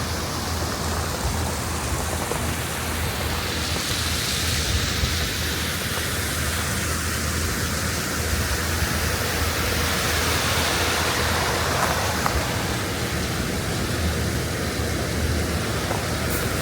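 Steady rushing of running water, an even noise with no breaks.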